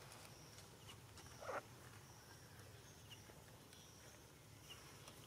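Near-silent outdoor ambience: a low steady hum with a few faint short chirps, and one brief rustle about a second and a half in.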